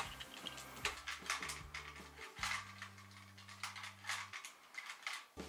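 Scattered plastic clicks and ticks from a hand-held toy-gun cat teaser being triggered, over quiet background music with low held notes.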